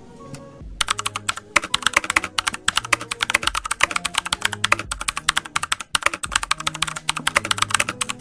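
Fast typing on the i500 budget mechanical keyboard, its clicky imitation Cherry MX Blue switches giving a dense rattle of key clicks that starts about a second in and pauses briefly near the end.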